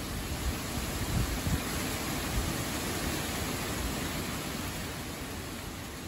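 Summer wind blowing through trees and tall leafy plants: a steady rushing rustle of leaves, with wind buffeting the microphone in irregular low rumbles.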